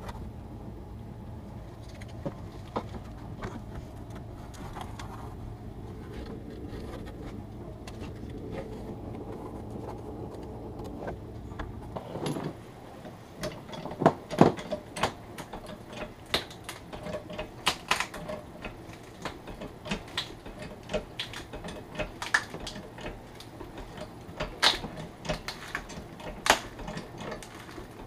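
Steady low rumble with faint scraping and clicks as the sink's clamps are loosened with a screwdriver underneath the sink. About twelve seconds in the rumble stops, and a long run of sharp, irregular knocks and clatters follows as wooden boards are handled and set against the cabinet fronts.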